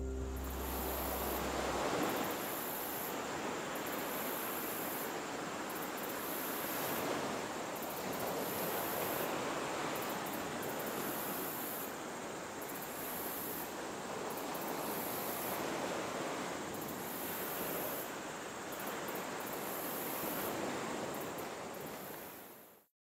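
Sea surf washing in, a steady rushing that swells and eases every couple of seconds, fading out near the end.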